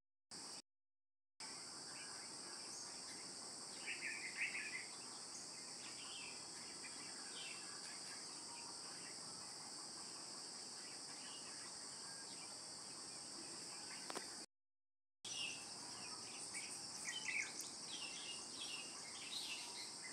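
Steady high-pitched insect chorus in the background, with scattered bird chirps about four seconds in and more of them near the end. The sound cuts out completely twice, about a second in and again near the middle.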